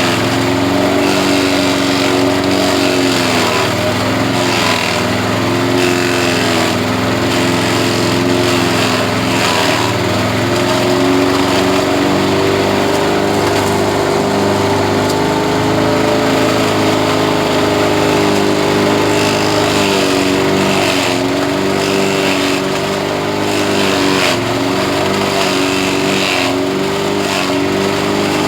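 Engine-driven grass chopper running steadily, its engine note dipping briefly every few seconds.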